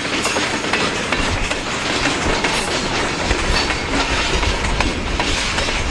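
Freight cars loaded with logs rolling past, a steady rumble of wheels on rail with irregular clicks and clacks over the rail joints.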